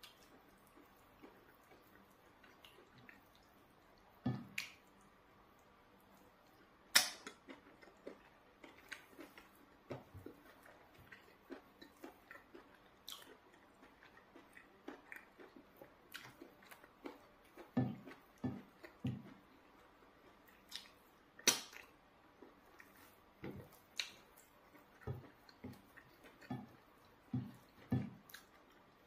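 Eating sounds: wet chewing and lip smacks as soft eba and spinach soup are eaten by hand, with scattered sharp smacks and soft low thuds.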